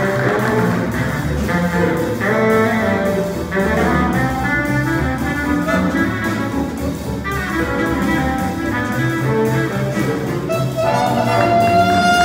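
Big band playing jazz live: saxophones and brass over a rhythm section of piano, electric guitar, upright bass and drums. A long held horn note comes in near the end.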